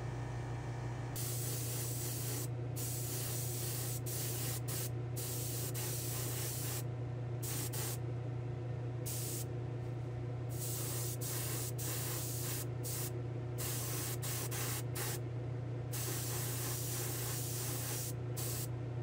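Airbrush spraying in short bursts of hiss that start about a second in and cut off and resume many times, over a steady motor hum.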